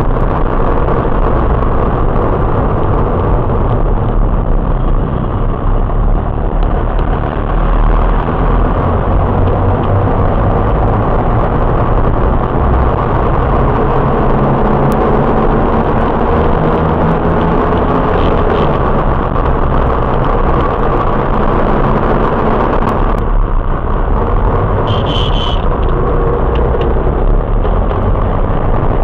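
Steady road and engine noise inside a moving Fiat Siena, as recorded by a dashcam's built-in microphone. About 23 seconds in, the recording cuts to another drive, and a couple of seconds later a short high-pitched tone sounds.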